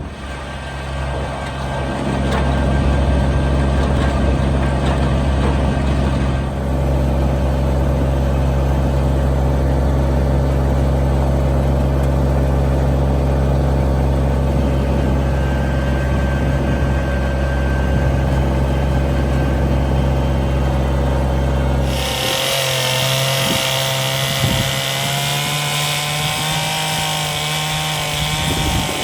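A large engine running at a steady, deep drone. About three-quarters through it gives way abruptly to a smaller, higher-pitched chainsaw engine whose pitch wavers and climbs near the end.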